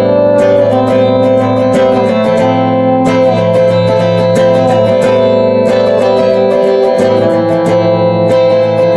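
Trumpet and hollow-body electric guitar playing together. The trumpet holds long notes over a steady rhythm of guitar chords.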